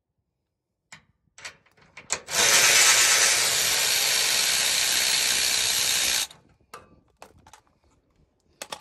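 Cordless electric ratchet running steadily for about four seconds, starting about two seconds in and stopping abruptly, as it drives in a bolt that mounts a Timbren rubber bump stop. A few light clicks and knocks of the tool and hardware come before and after it.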